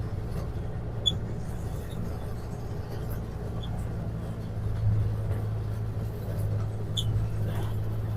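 A farm vehicle's engine running steadily at a low hum, with a couple of short clicks about a second in and near the end.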